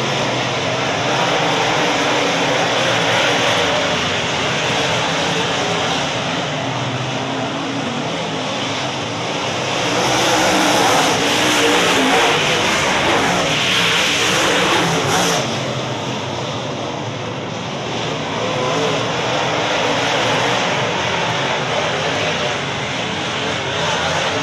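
A pack of UMP dirt-track modified race cars' V8 engines running hard around the oval, the engine noise swelling as the cars pass close by about ten seconds in and easing off again after about fifteen seconds.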